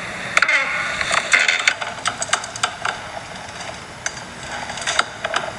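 Rocking office chair creaking as it rocks. There are irregular sharp creaks and clicks throughout, and a squeak that slides down in pitch about half a second in.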